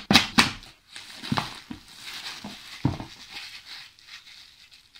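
Plastic shrink-wrap film being pulled off a cardboard game box and crumpled in the hands: crinkling, with a few sharp crackles and snaps in the first three seconds.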